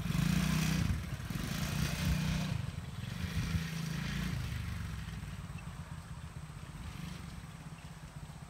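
Small youth ATV's engine running as it drives away across the grass, its pitch rising and falling over the first few seconds, then fading steadily with distance.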